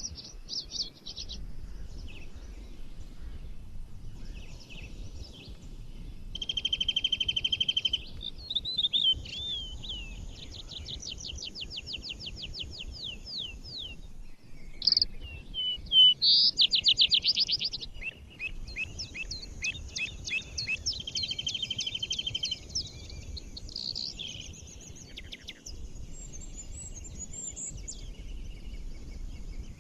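Several songbirds singing and calling together in a forest chorus. There are overlapping short high phrases and rapid trills, and the loudest trill comes just past the middle. A steady low background rumble runs under the birds.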